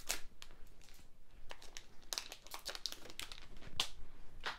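A trading card booster pack wrapper crinkling and tearing as it is opened by hand, in a run of short, sharp crackles that are densest about two to three seconds in.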